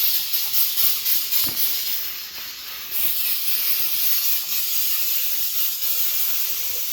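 Aerosol can of brake parts cleaner spraying in a continuous hiss, easing briefly about two seconds in, to wash spilled brake fluid off the brake and hub.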